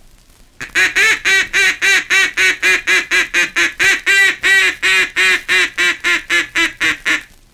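A mallard duck call blown in the 'come on back' call: a fast, steady run of hen-mallard quacks, about four or five a second. It is the call given when a flock is breaking in flight and turning toward the decoys. It starts about half a second in and stops shortly before the end, heard off an old 78 rpm record.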